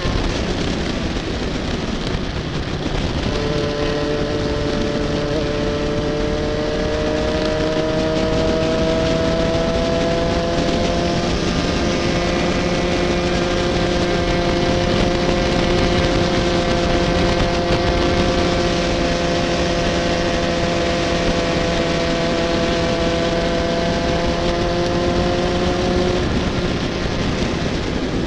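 Racing kart's 125cc two-stroke engine running at high revs with the rush of air past the microphone. The engine note climbs slowly for several seconds, holds steady, then drops near the end.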